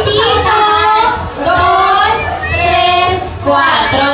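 A woman's high voice singing a melody into a microphone, in phrases of held notes with short breaks between them.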